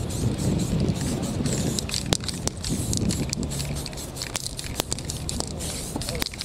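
Aerosol spray paint can hissing in short bursts, with many irregular sharp clicks and rattles of the can as it is handled and sprayed.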